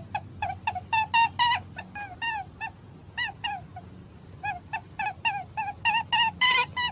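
A rapid run of short, high squeaks from a squeezed rubber squeaky toy, several a second, each sliding down in pitch, with a brief lull in the middle.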